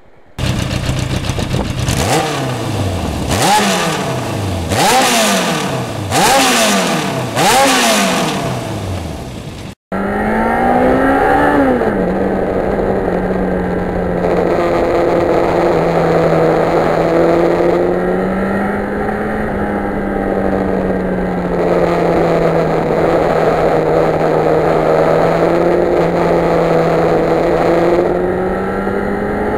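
A 1991 Yamaha FZR1000's inline-four engine accelerating hard through four or five quick gear changes. After a momentary dropout near ten seconds it runs at a steady cruising pace, its note rising and falling a little with the throttle.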